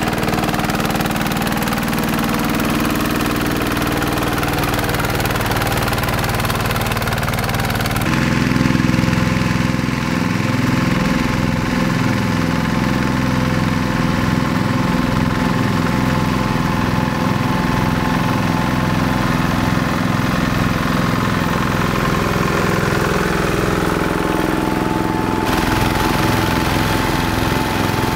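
Two-wheel hand tractor's single-cylinder diesel engine running steadily under load, pulling a plough through wet paddy soil, with a regular beat. The sound shifts abruptly twice, about a third of the way in and near the end.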